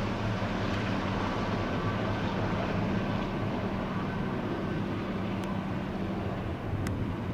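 Eurocopter AS332L1 Super Puma helicopter in flight, its rotor thrum and twin-turbine noise steady in tone and growing fainter as it moves away.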